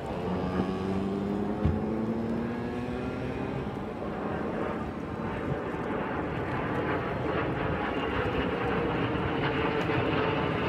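Jet engines of display aircraft flying overhead: a slowly rising engine tone in the first half gives way to a rushing noise that grows louder toward the end.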